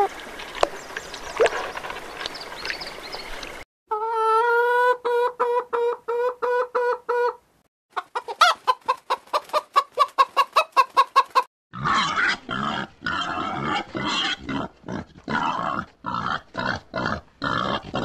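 A domestic hen clucking in quick, evenly repeated calls, after a few seconds of faint hiss. About twelve seconds in, this gives way to short rough grunts from a bearded pig, two or three a second.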